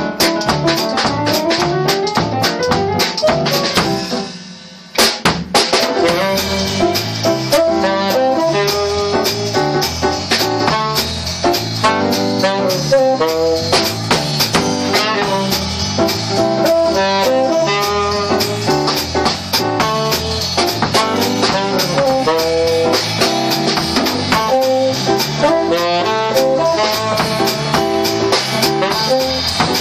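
Jazz trio of saxophone, Roland FR-7 digital accordion and drum kit playing at a swing tempo. About four seconds in, the band fades almost to nothing for about a second, then comes back in together with a loud hit, and the saxophone carries the melody over the drums.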